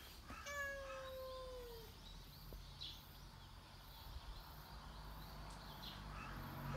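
Domestic cat giving one long meow about half a second in, held fairly level and dropping slightly in pitch as it ends.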